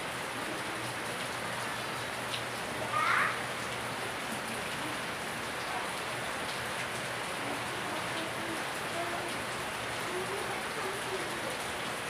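Steady rain falling, an even hiss, with one short sound rising in pitch about three seconds in.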